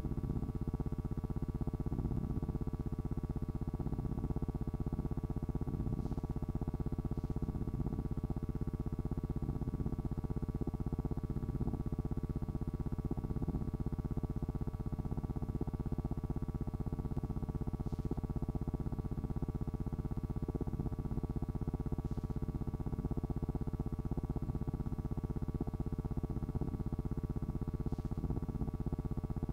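Steady synthesizer-like electronic drone with a buzzy low hum, unchanging throughout.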